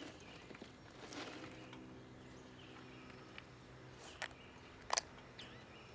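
Softshell steamer clam shells clicking against each other as they are set one by one onto a pile of seaweed in a pot, with two sharp clicks about four and five seconds in, over a faint low hum.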